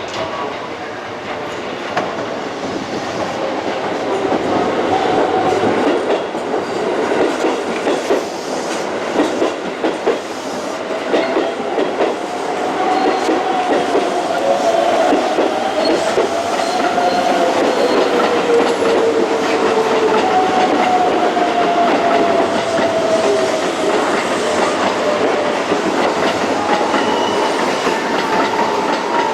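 Keisei electric train running along the track, its wheels clattering over rail joints, growing louder over the first few seconds. Through the second half several long tones slowly glide up and down in pitch over the running noise.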